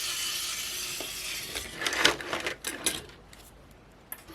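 Small plastic camera parts being worked apart by hand: a long scraping rub, then a run of light clicks and taps.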